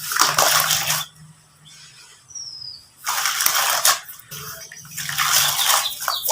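Lumps of sand-cement mix crumbling and falling apart in three gritty bursts: about one second long at the start, another about three seconds in, and a longer one soon after.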